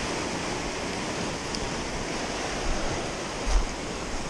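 Surf washing over a pebble and rock shore, a steady rush of water, with a couple of dull low thumps about three and a half seconds in.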